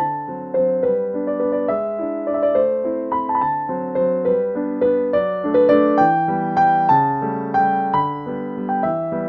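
Background piano music: a gentle, steady melody of struck notes over sustained chords.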